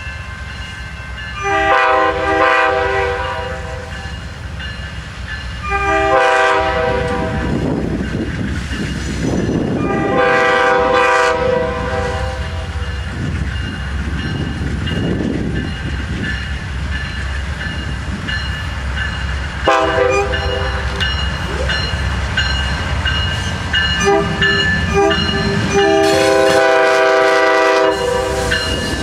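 Amtrak passenger train led by two GE P42DC Genesis diesel locomotives sounding its air horn in a series of about six blasts, one short one about two-thirds of the way in and the last held longest as the locomotives pass. Under the horn runs the steady rumble of the diesels and the rolling wheels.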